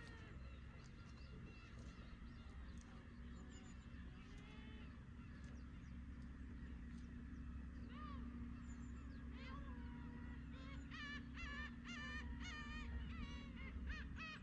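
Black-tailed gulls calling over the low, steady wash of waves. Scattered mewing calls come at first, then thicken into a quick run of repeated calls in the last few seconds.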